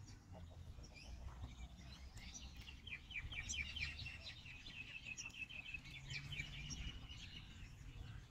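Faint songbird twittering: a fast run of short, high chirps starting about two seconds in and ending near the end, over a low wind rumble.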